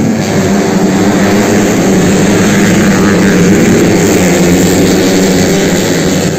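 A pack of 250 cc motocross bikes racing away from the start line, many engines running together, loud and steady.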